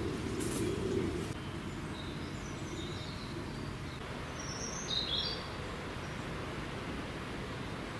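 Woodland ambience: a steady outdoor background hiss with a few short, high bird chirps a few seconds in.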